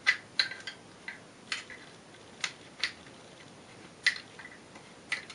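Irregular sharp clicks of an Allen wrench being turned and repositioned in the screw at the base of an AK pistol grip as it is tightened, about ten in all.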